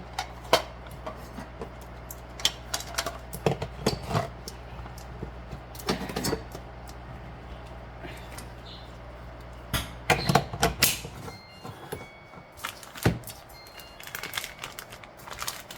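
Kitchen handling clatter: irregular clicks and knocks as utensils and containers are picked up and set down on a counter, over a steady low hum that stops about eleven seconds in.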